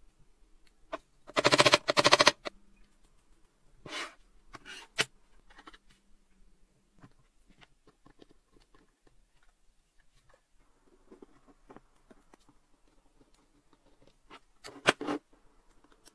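Small metal calendar parts being handled and worked with hand tools on a wooden bench. About a second in there is a loud, rough rasp of about a second. Scattered metal scrapes and clicks follow, with a short cluster near the end.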